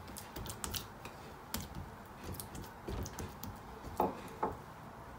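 Oiled hands pressing and patting soft naan dough in a glass bowl: a scattering of light taps and clicks, with a couple of stronger knocks about four seconds in.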